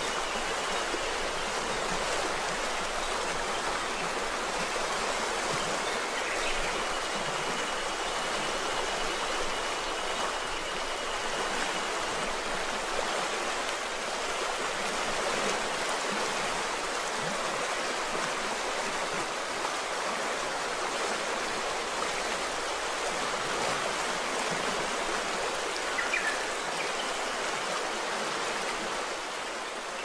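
Shallow river running over a gravel and pebble bed: a steady, even rush of flowing water.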